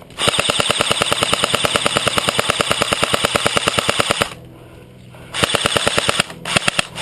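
Airsoft gun firing on full auto: a rapid, even rattle of shots in a long burst of about four seconds, a shorter burst a second later, then a few quick single shots near the end.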